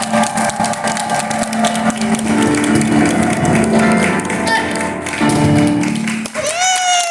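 A live piano and cajón instrumental plays with dense percussive strokes, then stops on a final hit about six seconds in. A gliding cheer or shout starts just after.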